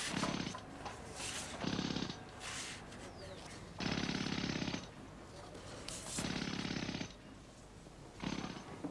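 A fast mechanical rattle that comes in five bursts of half a second to a second each, starting and stopping abruptly, with short quieter pauses between.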